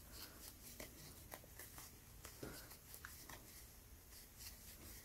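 Very quiet handling sounds of crochet: faint, irregular light ticks and rustle of yarn as a metal crochet hook works single crochet stitches.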